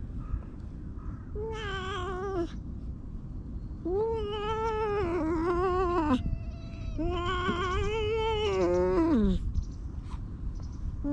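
Domestic stray cat meowing: three drawn-out meows, a short one and then two longer ones, each dropping in pitch as it ends.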